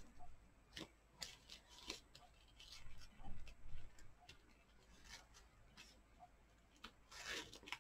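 Faint, scattered rustles and light ticks of ribbon being pulled and tied into a bow on a paper card.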